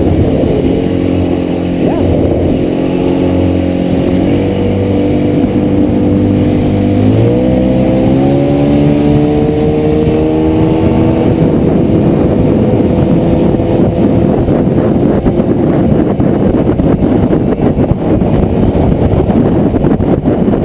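Motorboat engine running under way. Its pitch steps up about four seconds in and climbs over the next few seconds as the throttle is opened. After that the engine tone gives way to a steady rushing noise of the boat at speed.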